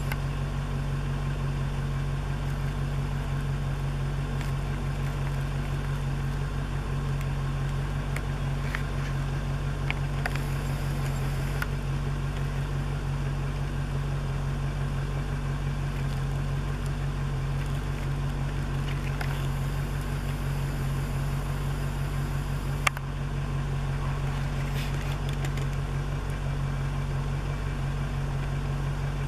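An engine idling steadily: an even, low, unchanging hum. A single sharp click comes about three quarters of the way through.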